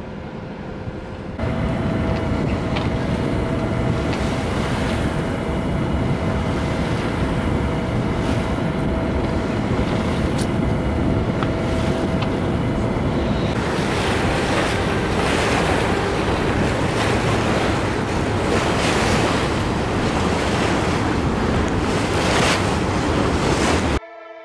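Wind buffeting the microphone over water rushing past a sailboat under way, with a faint steady tone in the first half. It starts abruptly a second or so in and cuts off suddenly near the end.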